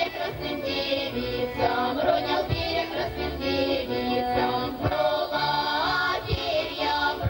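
Russian folk music with an accordion, played for a round dance.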